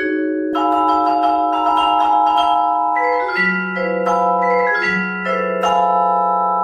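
Vibraphone played with four mallets, opening a solo piece: a series of soft-edged chords struck one after another, each ringing on and overlapping the next, with a low note added about three and a half seconds in and held.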